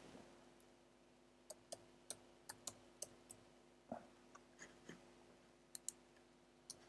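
Faint laptop keyboard key clicks as a word is typed: about a dozen irregular keystrokes, starting about a second and a half in.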